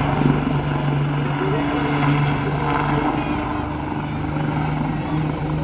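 HAL Light Utility Helicopter's rotor and turbine engine giving a steady drone with a constant low hum as it manoeuvres in a pirouette.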